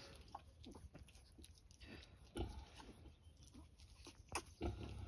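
Faint, scattered short noises from a farrowing kunekune sow and her newborn piglets, with two slightly louder short sounds about two and a half and four and a half seconds in.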